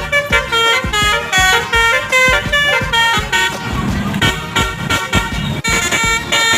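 A bus's basuri musical horn playing a quick tune, its notes stepping up and down in pitch with barely a gap between them, over a steady low thumping beat.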